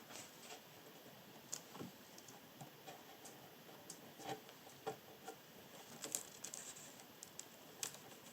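Faint, scattered small clicks and taps from small items being handled at a workbench, a few times a second at irregular intervals.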